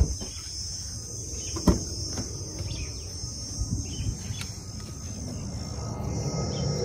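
Insects chirring steadily in a high, continuous drone. Over it come a sharp knock at the start and another under two seconds in, with a few lighter clicks from handling the car's door and cabin.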